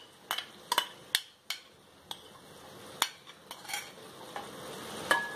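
A spoon clinking and scraping against a kadhai as a green-vegetable puree is added to the masala, a series of irregular sharp knocks over a faint sizzle.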